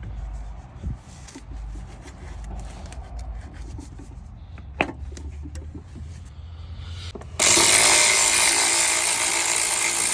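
Scattered clicks and knocks of handling at the engine, then a handheld power tool starts suddenly and runs loudly and steadily for about three seconds near the end.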